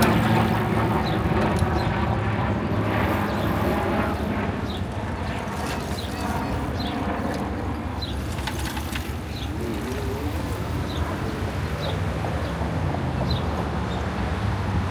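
City street traffic: a motor vehicle's engine runs with a steady low hum that eases off a little after the start. Short high chirps repeat about once a second over it.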